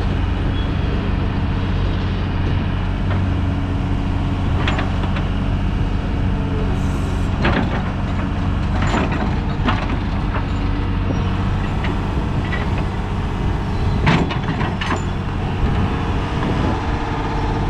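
Diesel engine of a Doosan DX225LCB hydraulic excavator running steadily, with several sharp metallic clanks and knocks from the machine.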